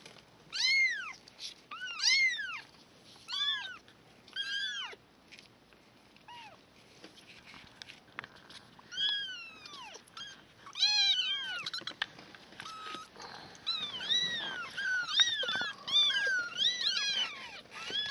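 Kittens about three weeks old mewing: a string of short, high, arching cries, falling quiet for a few seconds around the middle, then several kittens calling over one another.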